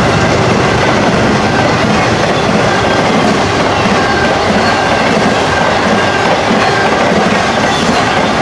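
Intermodal freight cars of a fast BNSF train rolling past: a loud, steady rumble of steel wheels on rail with a repeating clickety-clack.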